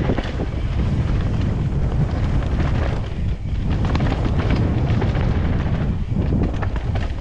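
Heavy wind buffeting on an action camera's microphone, mixed with the rumble and clatter of a bike riding fast down a rough, rocky dirt trail.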